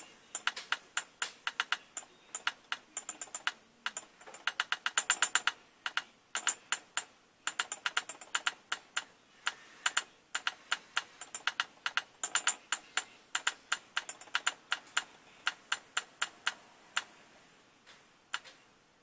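Novelty toy alarm clock with two caveman-kid figures drumming: quick plastic taps on a small cymbal and a log drum, in uneven runs with fast rolls about five seconds in and again about twelve seconds in, stopping near the end.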